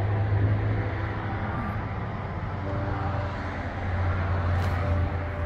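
A motor vehicle's engine running steadily, a low hum with faint engine tones above it that swells a little near the end.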